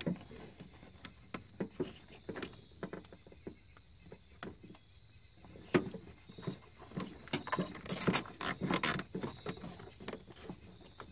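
Plastic zip tie being pulled tight, its teeth ratcheting through the lock: scattered clicks and small plastic rattles, with a quicker run of clicks about eight seconds in.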